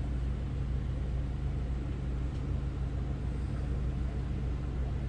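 A steady low hum, like a machine running, with no sudden sounds over it.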